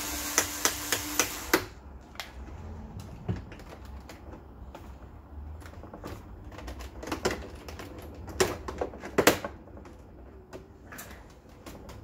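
A small cordless screwdriver whirs with a quick run of clicks and stops about a second and a half in. After that come scattered sharp plastic clicks and snaps, loudest about three quarters of the way through, as the plastic back case of an HP Pavilion 23 all-in-one is worked at its edges to find and release its clips.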